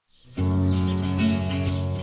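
Background music that starts abruptly about a third of a second in, after a brief silence, and then plays steadily with clearly struck notes.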